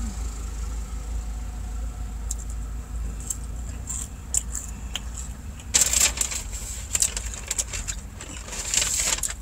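Someone eating crunchy waffle fries close to the microphone, with crisp crunches and crinkling that come in scattered clicks and grow loudest twice in the second half. A steady low hum of the car runs underneath.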